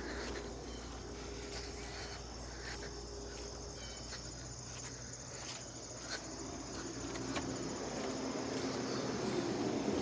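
Insects chirring steadily outdoors, a high, even buzz. A low hum grows louder near the end.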